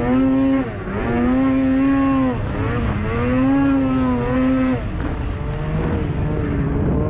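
Snowmobile engine revving up and down, its pitch rising and falling four times in quick succession, then settling to a lower, steadier note for the last couple of seconds.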